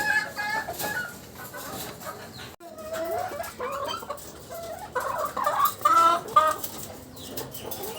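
Caged chickens clucking, several short calls coming in bunches, with a brief break in the sound a little past two and a half seconds in.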